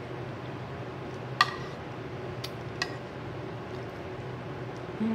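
Spoon clinking against a soup bowl: a few sharp, briefly ringing clinks, the loudest about a second and a half in, over a steady low hum.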